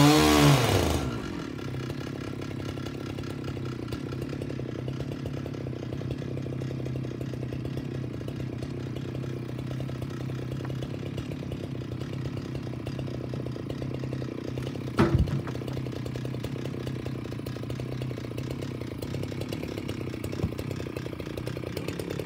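Large chainsaw on a homemade chainsaw mill: the throttle is let off, and the engine winds down about a second in and idles steadily. A single sharp knock sounds about fifteen seconds in.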